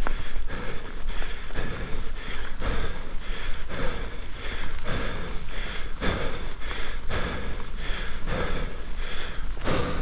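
A mountain biker breathing hard in a steady rhythm, about two breaths a second, over a constant low rumble of wind and riding noise. A louder rush of breath or wind comes near the end.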